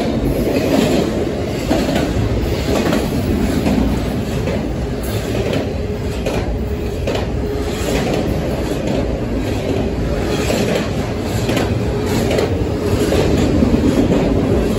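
Double-stack intermodal freight train's well cars rolling past close by: a steady loud rolling noise with repeated clacks of wheels over rail joints.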